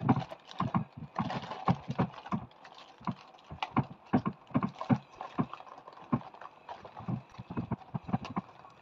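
Plastic packet of vermicelli being crumpled, folded and twisted by hand against a wooden chopping board: irregular crinkles and crackles with dull knocks as the packet and its contents shift against the board.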